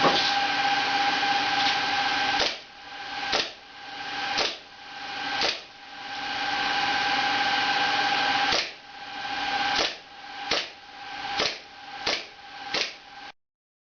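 Gas blowback airsoft replica of the VIS model 1935 pistol firing 6 mm BBs: about ten sharp shots at irregular intervals, the last few coming quicker. A steady high-pitched hum runs under them.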